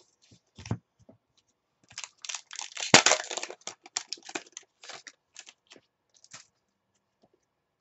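A trading-card pack wrapper being torn open and crinkled in the hands: a run of crackling rustles with a sharp rip about three seconds in, and a few light clicks of cards being handled before it.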